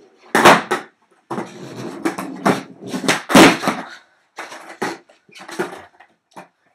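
Skateboard tricks on a plywood floor sheet: wheels rumbling as it rolls, with sharp clacks of the board hitting the floor, the loudest about three and a half seconds in.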